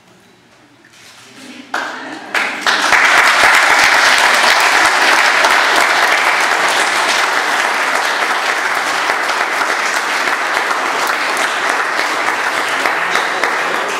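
Wedding guests applauding: a quiet moment, then clapping breaks out about two seconds in, builds within a second to loud, steady applause and holds.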